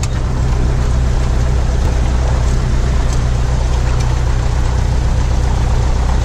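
Cessna 172's piston engine and propeller running steadily at taxi power, heard from inside the cabin as a loud, even low drone.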